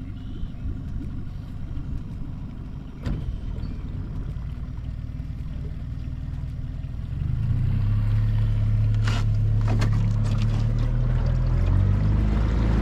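Boat motor running slowly, then opening up about seven seconds in and holding a steady, louder hum as the boat gets under way. A sharp click about three seconds in.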